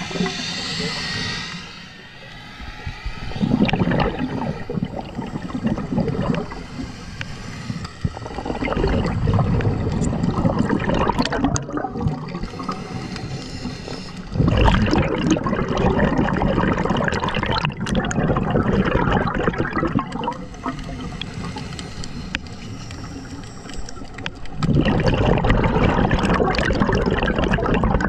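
Scuba diver breathing through a regulator underwater: rushing bursts of exhaled bubbles a few seconds apart, with quieter stretches between them and scattered sharp clicks.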